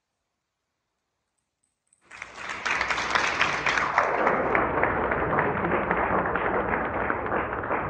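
Silence, then audience applause starts suddenly about two seconds in and keeps going steadily, a dense patter of many hands clapping.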